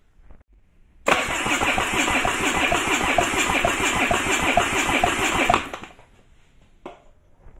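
Sea-Doo GTX Limited iS 260 engine being cranked over on its electric starter without firing, an even rhythmic churning that starts about a second in and stops after some four and a half seconds. This is a compression test on cylinder number two, which pulls up to about 125 psi.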